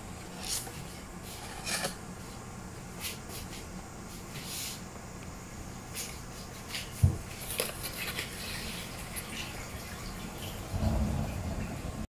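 Paper instruction card handled and flexed in the hand, giving scattered light crackles and rustles, with a single knock about seven seconds in.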